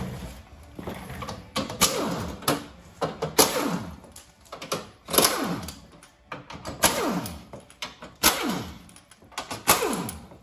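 A handheld power tool run in short bursts on the tractor's bolts, about every second and a half. Each burst starts sharply and winds down in falling pitch.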